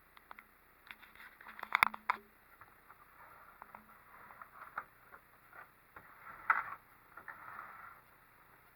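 Handling noise from 3D printer kit parts being moved and fitted: scattered light clicks, taps and scrapes, with a small cluster about two seconds in and a sharper knock about six and a half seconds in.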